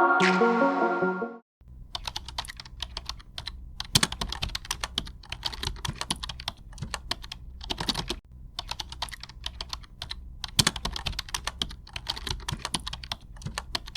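A piece of music cuts off about a second and a half in. It is followed by rapid, irregular clicking like typing on a computer keyboard, over a low hum, with a brief break about eight seconds in.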